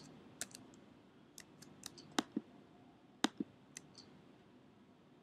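Computer keyboard and mouse clicks: about a dozen sharp, irregular clicks, the loudest a little after two and a little after three seconds in, over faint room hiss.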